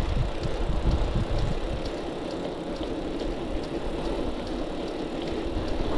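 Wind buffeting an action camera's microphone with tyre rumble from a bicycle being ridden on asphalt, a steady low rumble with a few faint light ticks.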